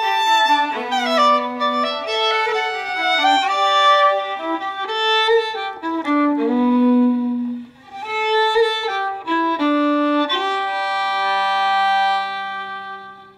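Fiddle music: a run of quick bowed notes that ends on a long held note fading out near the end.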